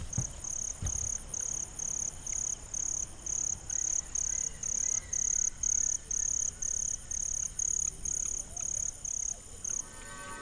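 Cricket chirping in short, even pulses, about two a second, stopping shortly before the end. A couple of soft low thumps come near the start.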